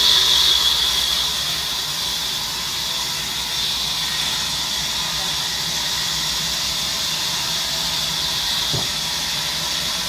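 Large sawmill band saw running through a log with a steady, high-pitched hiss, louder for about the first second.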